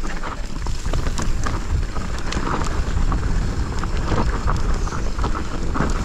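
Mountain bike rolling down a narrow dirt singletrack: wind rumbling on the GoPro's microphone over the rattle of the bike and its tyres on the dirt, with many small clicks and knocks.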